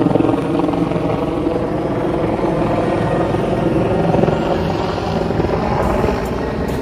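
Helicopter flying overhead, its rotor beat steady and gradually fading as it moves away.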